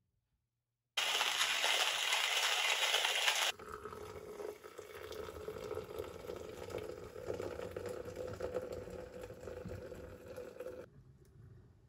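Hot water being poured into a glass French press of coffee grounds: a loud rush for about two and a half seconds, then a softer, steady pour that stops suddenly about a second before the end.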